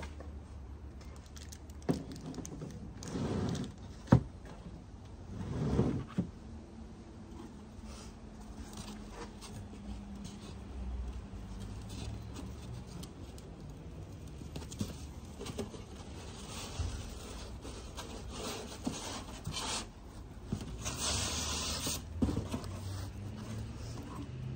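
Plastic plug trays and their cardboard shipping box being handled: scattered rubbing and scraping, a few sharp knocks in the first seconds, and a longer rustle near the end.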